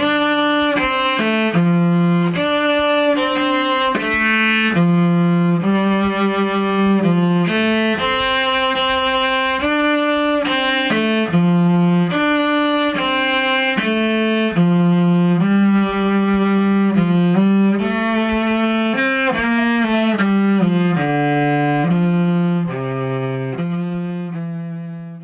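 Background music: a slow melody of held, low-pitched bowed-string notes following one another, fading out at the end.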